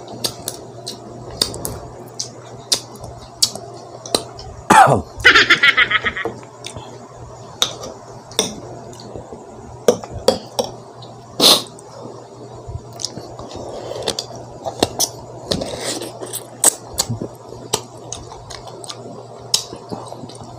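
Metal spoon clinking and scraping against a glass jar and a ceramic plate while scooping a topping onto slices of unripe green mango, with crunchy bites and chewing between. Sharp clicks come every second or so, and a louder squeaky burst comes about five seconds in.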